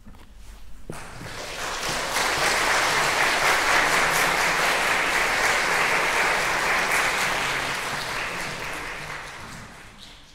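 Audience applauding at the end of a classical guitar piece, swelling over the first two seconds, then slowly fading away near the end.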